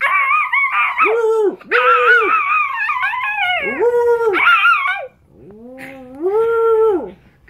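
A person howling and yelping in imitation of a dog, voicing a hand-shadow dog: a string of rising-and-falling howls mixed with high wavering yelps, ending in one longer howl that starts low and climbs.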